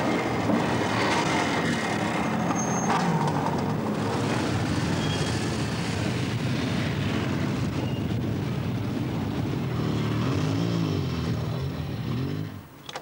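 Motorcycle racing engines running hard at high revs, the engine pitch swinging up and down a couple of times near the end as machines pass; the sound cuts off suddenly just before the end.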